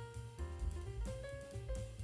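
Background music with a drum kit.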